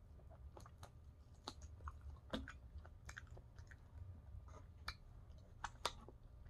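A person chewing buffalo chicken wings close to the microphone: faint, with scattered short wet mouth clicks and smacks.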